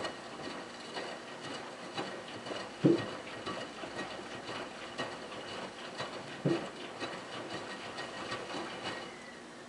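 Miele W3033 front-loading washing machine drum tumbling a wet, sudsy cotton blanket in the wash: water sloshing and splashing, with two heavy thumps about three and a half seconds apart as the load drops. The tumbling stops near the end.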